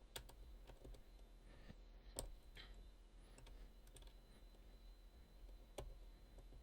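Faint, scattered ticks of a steel lock pick working the pin stacks inside a Sargent padlock under tension: a handful of sharp separate clicks over several seconds, the clearest about two seconds in.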